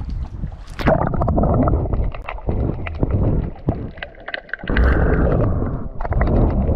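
Sea water gurgling and sloshing around a GoPro lowered into it on a string, in irregular surges with scattered clicks.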